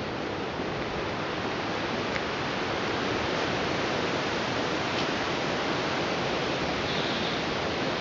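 Hurricane wind rushing steadily, an even roar with no letup.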